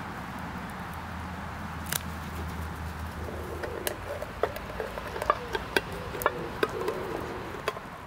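Can opener of a British Army clasp knife punching and levering round the lid of a tin can: a run of sharp, irregular metallic clicks and scrapes starting about three seconds in, over a steady background hiss.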